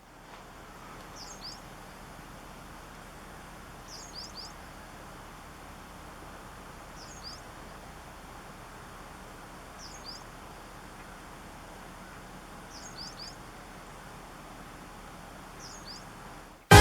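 A bird repeating a short, high, two- or three-note chirp about every three seconds, six times, over a steady outdoor background hiss.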